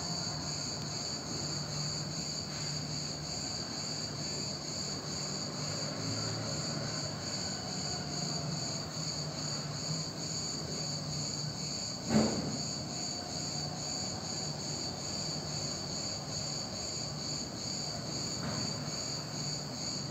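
Steady, high-pitched chirring of insects, with a faint low hum beneath. A single sharp knock comes about twelve seconds in.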